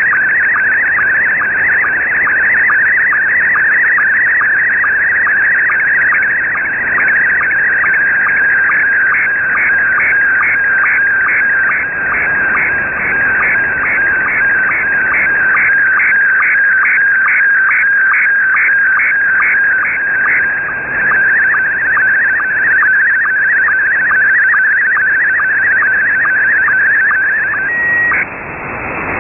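Slow-scan television (SSTV) picture signal received over shortwave single sideband: a high-pitched warbling, buzzing tone with a regular pulse, as the image is sent line by line. Near the end it stops after a brief steady tone, leaving radio static.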